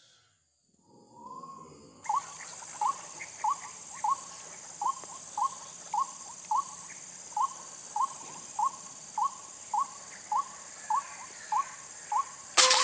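White-breasted waterhen calling a steady, repeated string of short 'kwak' notes, nearly two a second, over a constant high insect drone. A single sharp gunshot cracks near the end.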